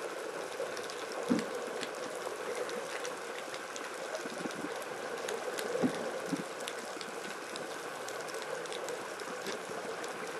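Underwater ambience: a steady hiss with faint scattered clicks and a few dull low thumps, the most marked about a second in and near six seconds.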